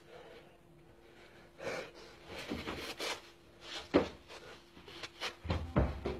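A person exercising on a carpeted floor: scattered thumps and rustles as he drops onto his hands and then sits down, with the sharpest knock about four seconds in and a few low thuds near the end.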